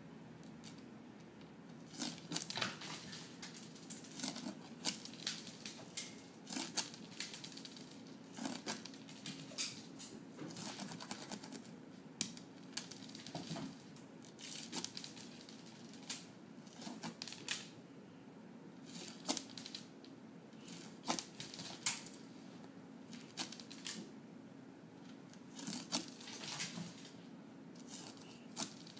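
Irregular bursts of clicking and skittering on a tiled floor: dry cat food pellets sliding across the tiles and a cat's paws scrabbling as she chases and bats them.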